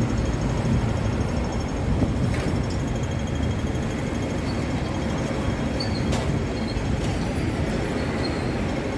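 Steady low rumble and hiss of a vehicle in motion.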